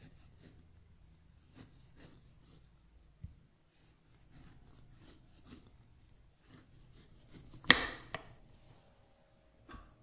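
Kitchen knife paring a strip of peel from a lemon on a wooden cutting board: faint scraping and slicing strokes, then late on one sharp knock on the board and a softer one just before the end.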